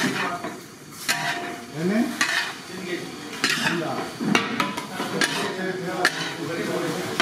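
A long steel ladle scraping and clanking against a large steel kadai as a batch of rice is stirred and tossed while it fries, with a sharp clank about once a second.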